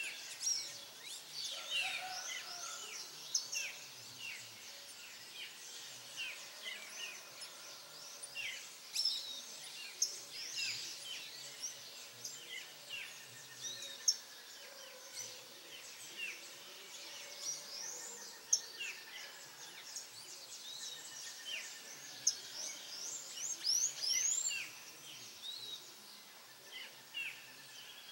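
Dawn chorus of many songbirds: a dense, unbroken mix of short high chirps and whistled notes from several birds at once, with a few trills among them.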